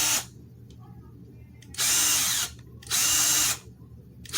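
KIMO 12-volt cordless power tool triggered in short bursts of about half a second, its motor spinning up and stopping each time: once just ending as the sound begins, twice in the middle, and again starting near the end.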